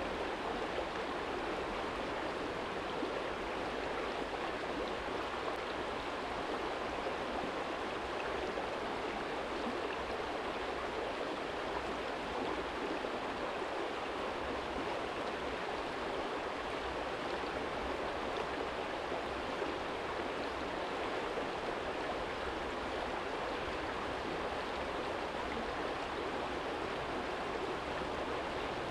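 Small stream flowing steadily over a stony bed: an even, unbroken rush of water.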